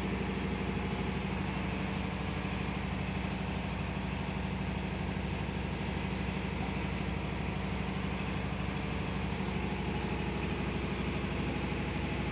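An engine idling steadily: a constant drone with a fine, fast, even pulse.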